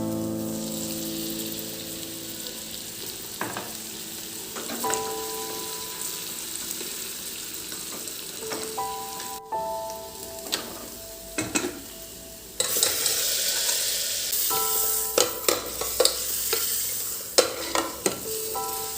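Food sizzling in a hot pan while it is stirred, with sharp clicks of a utensil against the pan. The sizzle gets suddenly louder about two-thirds of the way through.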